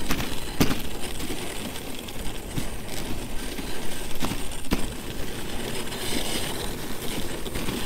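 Dog sled running over an icy, hard-packed snow trail: a steady scraping hiss from the runners, with a few sharp knocks and rattles as the sled bumps.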